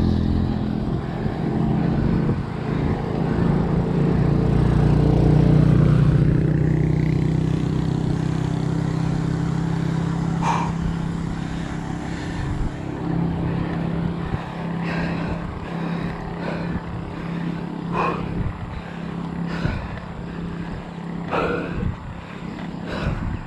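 A motor vehicle's engine passing close by, loudest about five seconds in, its hum dropping in pitch as it goes past, then a fainter steady engine hum. A few brief sharp sounds come in the second half.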